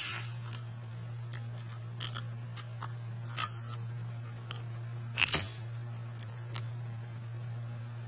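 Zippo lighter clicking and clinking as it is handled through a trick: a sharp click at the start, then a scatter of lighter metallic clicks and short pings from the lid and case, the loudest pair about five seconds in. A steady low hum runs underneath.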